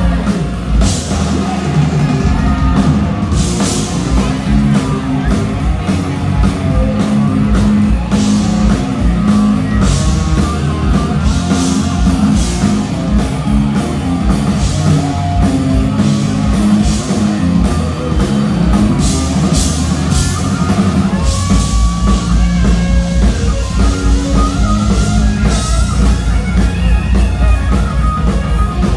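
A live rock band playing through a PA, with a drum kit driving the beat, cymbal hits, and electric guitar and bass.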